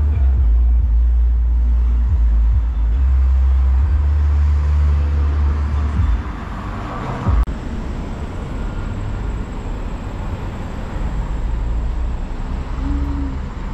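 Street traffic with cars passing at an intersection. A heavy low rumble runs for the first six seconds and then drops away. A car passes around seven seconds in, with one short sharp knock.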